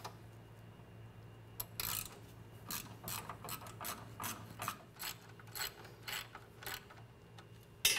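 Hand ratchet wrench clicking in quick strokes, about three a second, starting about two seconds in, as a half-inch socket loosens the retaining clamps that hold the fuel and brake lines to the frame rail.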